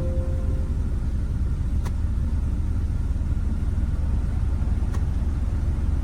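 Car engine idling steadily, a low rumble heard from inside the cabin. A short electronic beep sounds right at the start, and two faint clicks come about two and five seconds in.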